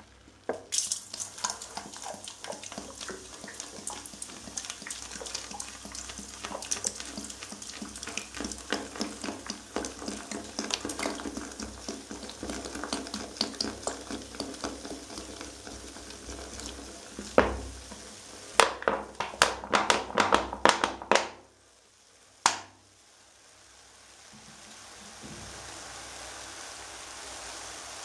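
Coca-Cola Zero Sugar poured from a plastic bottle into toilet-bowl water, splashing and crackling with fizz for about twenty seconds. Near the end of the pour there is a heavy thump, then the last of the bottle glugs out in a quick run of loud pulses. A single sharp click follows, then a soft steady hiss.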